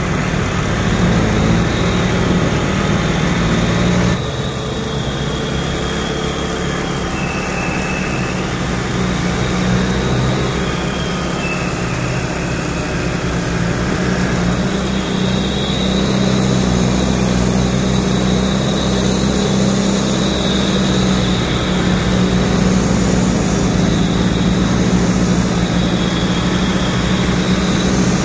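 Diesel engine of a heavily loaded Mitsubishi light truck running steadily at low speed, a low hum that changes abruptly about four seconds in.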